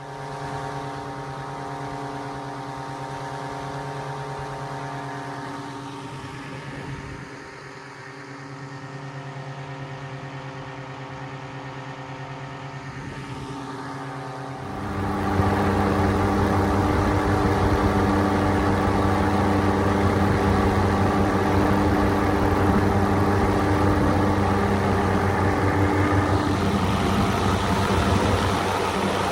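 Two-stroke paramotor engine running steadily, with a sudden step up to a much louder level about halfway through that holds to the end.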